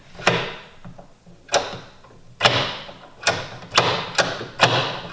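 Short shifter on a Nissan CD009 six-speed gearbox being moved through the gears. It gives a sharp metallic clunk as it drops into each gate, about eight in a little under five seconds.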